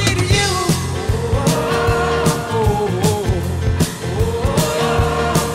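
Background rock music with a steady drum beat, bass and a melody line.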